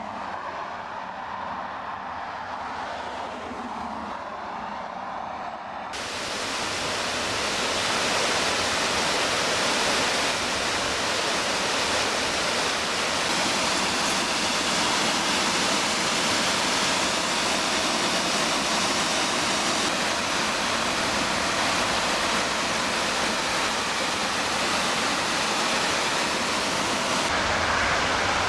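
A car drives past at the start. About six seconds in, the sound cuts to a small waterfall splashing over rock into a pool, a loud, steady rush of water.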